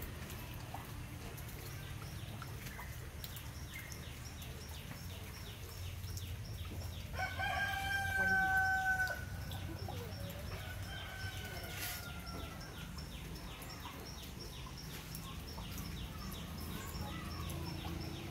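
A rooster crows once, a loud held call about seven seconds in, with a fainter, shorter call just after. Underneath are a steady low rumble and a fast, regular high ticking.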